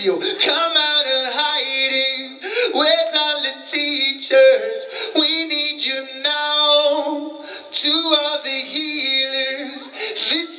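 A man singing live into a microphone, his voice sliding through melodic phrases, with short sharp clicks between some of the notes.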